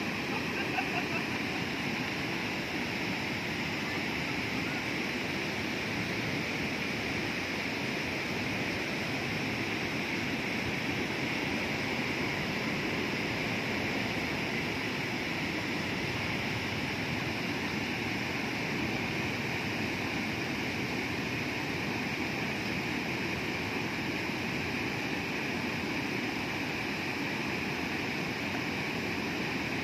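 Muddy river water pouring over a low concrete weir and churning through the rapids below it: a steady, unbroken rush of white water.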